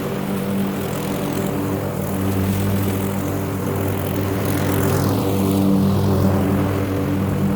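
Walk-behind bagging lawn mower running steadily as it cuts Bermuda grass, its engine hum even throughout.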